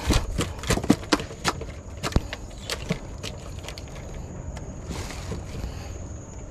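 Irregular sharp knocks and taps, thick in the first three seconds and sparser after, over a steady high-pitched insect drone.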